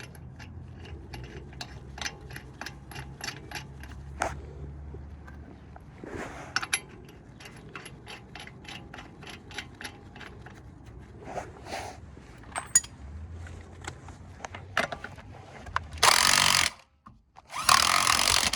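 Socket ratchet clicking in quick runs of about five clicks a second as wheel lug nuts are run down. Near the end come two short, loud bursts of noise.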